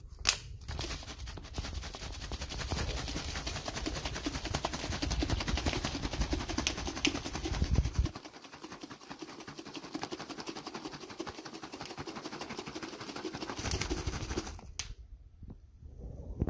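Water sloshing inside a plastic water bottle shaken hard by hand, with rapid rattling and crackling of the thin plastic. The shaking stops about a second and a half before the end.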